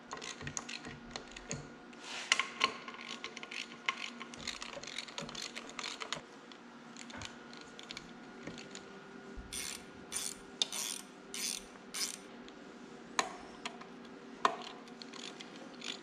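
Hand tools and metal parts clicking and clinking as bolts are fitted into a tractor transmission housing, with a quick run of sharper clicks from about nine and a half seconds to twelve.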